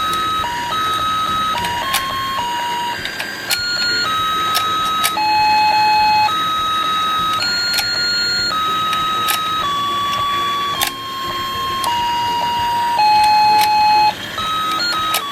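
Battery-powered toy fishing game playing its electronic beeping tune, one plain note at a time, with sharp clicks scattered through it.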